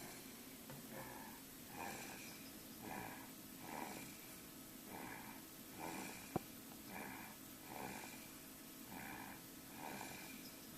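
Nine-month-old baby snoring softly in sleep, a short snore about once a second. There is a single sharp click a little past the middle.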